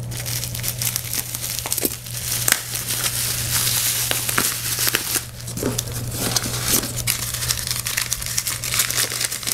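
Bubble wrap and plastic wrap crinkling and rustling as they are cut and pulled off a lightsaber hilt, then brown packing paper crumpling as it is unwrapped, with many small crackles, over a steady low hum.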